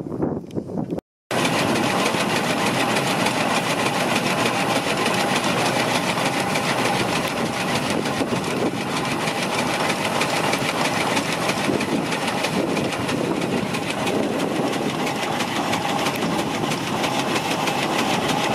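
Fowler steam ploughing engine working, its winding drum hauling in the steel plough cable: a steady, dense clatter of gearing and machinery under load. The sound drops out for an instant about a second in.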